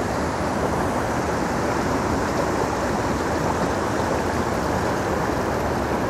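River water rushing and churning over rocks and down a small cascade: a steady, unbroken rush.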